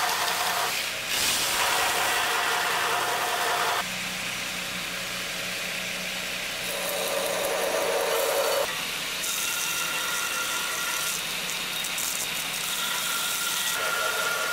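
2x72 belt grinder running with an AEBL steel knife blank pressed against the abrasive belt, grinding the blade's profile to shape. A steady grinding noise that changes abruptly in level and pitch several times.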